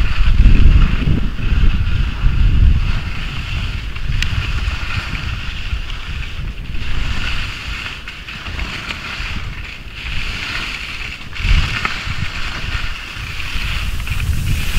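Skis hissing and scraping over hard snow during a downhill run, with wind buffeting the microphone in uneven gusts.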